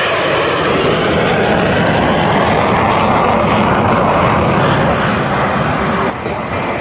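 Fighter jet making a fast low pass, its jet engines giving a loud, steady roar. Just after six seconds in the sound dips briefly and changes, cutting to another jet's pass.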